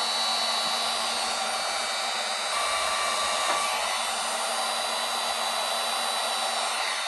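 Electric heat gun running steadily, its fan blowing hot air onto an aluminum panel to warm the dent while it is being pulled.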